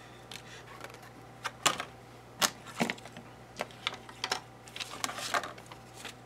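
A dozen or so irregular clicks and taps of a small plastic-cased radio receiver and its clear plastic packaging being handled on a cardboard box, with a light rustle of paper.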